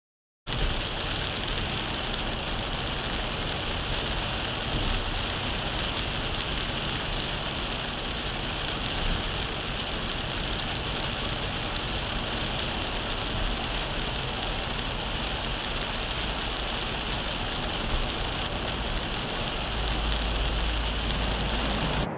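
Steady hiss of water beating on a car windscreen, heavy like rain or spray, with a low rumble underneath. It starts abruptly about half a second in and cuts off suddenly near the end.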